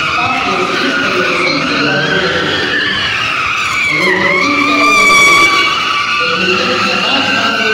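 Car tyres squealing as a sedan drifts in tight circles doing donuts: a continuous wavering screech that dips in pitch and climbs again around the middle and is loudest a little past halfway. The engine revs underneath.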